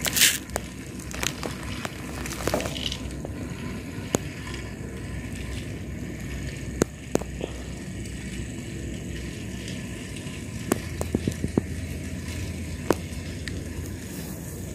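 Battery-powered Railking toy train and its wagons running on plastic track: a steady rolling rattle broken by scattered sharp clicks, one loud click right at the start as the wagons pass close by. The batteries are nearly flat.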